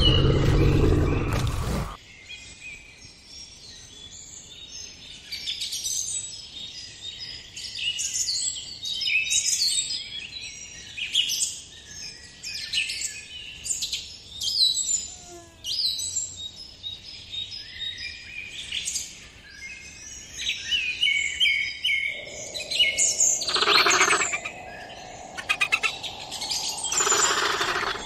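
A loud, deep dinosaur roar cuts off about two seconds in. After it comes a steady stream of many short, high bird chirps and tweets, with a faint low hum joining near the end and two louder noisy bursts.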